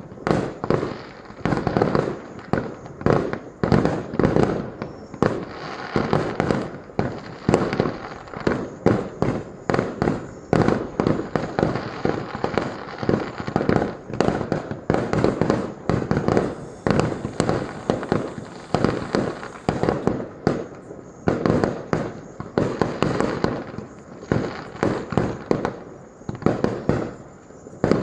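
Fireworks display: a continuous barrage of firework bangs, several a second, without a break.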